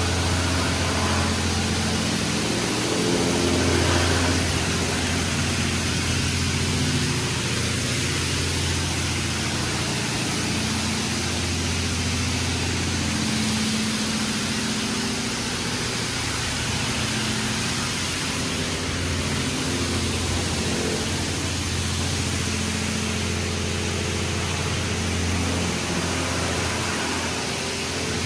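High-pressure water jets of a PDQ LaserWash 4000 touchless car wash spraying over a car: a steady hiss of spray on the bodywork over a steady low hum.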